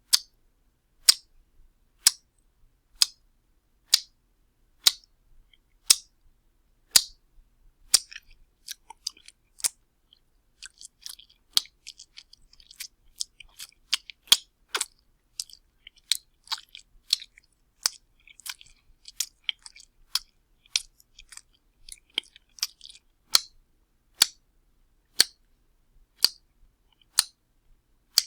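Wet slaps, sharp and short: about one a second at first, then a quicker, uneven flurry of lighter slaps through the middle, then back to about one a second near the end.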